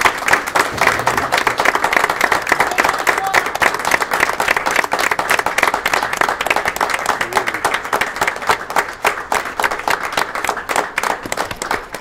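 Audience applauding: many people clapping together, thinning toward the end into fewer, more separate claps.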